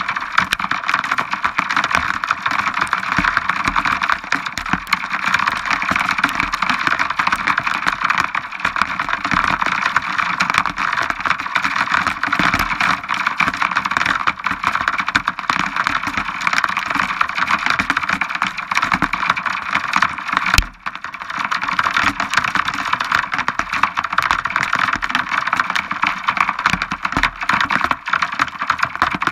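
Heavy rain pattering fast and steadily on a hard surface close to the microphone, with one sharp knock about two-thirds of the way through.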